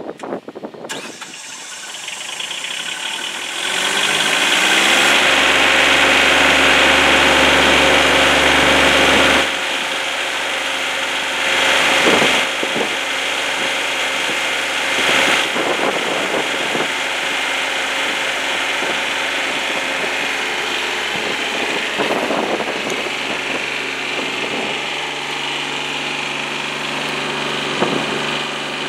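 The Powervamp SCAMMER 300 ground power unit's small three-cylinder diesel engine starts, speeding up over the first few seconds. It then runs steadily, driving its generator, and settles a little quieter about nine seconds in. A few knocks sound over it now and then.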